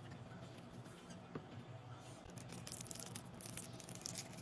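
Hands handling packaging: faint rustling and crinkling of plastic and cardboard, busiest in the second half, over a low steady hum.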